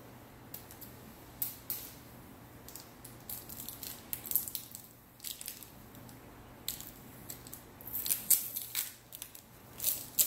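Packaging being handled while unboxing a vacuum cleaner: short, irregular crinkles and crackles of tape and wrapping being pulled and cut from the parts.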